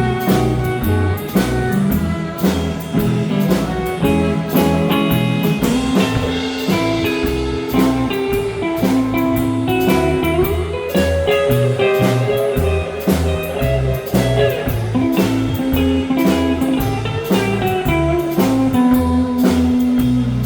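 Live band playing an instrumental break with no singing: guitar and a drum kit keeping a steady beat, under a lead line of long held notes.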